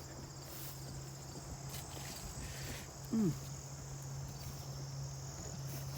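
Crickets trilling steadily in a high evening chorus over a low steady hum. About three seconds in comes one short, falling voiced sound.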